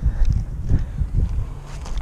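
Footsteps of a person running over dry grass and fallen leaves, a quick uneven run of dull thuds that eases off a little near the end.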